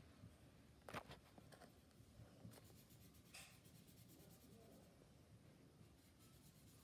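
Faint scratching of felt-tip markers on paper, with a single click about a second in; otherwise the room is near silent.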